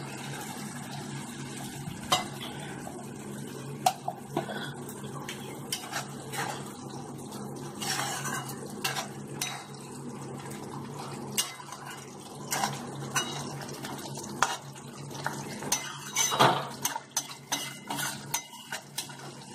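Metal spatula stirring a thick curry in a metal kadai, scraping and clinking against the pan's sides and bottom in irregular strokes, over a steady low hum.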